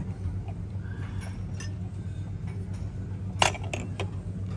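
Glass champagne flutes clinking together in a toast: one sharp clink about three and a half seconds in, followed by a couple of lighter taps, over a steady low background hum.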